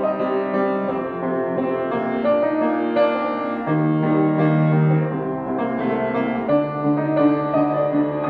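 Grand piano played solo: a steady run of notes over held low bass notes.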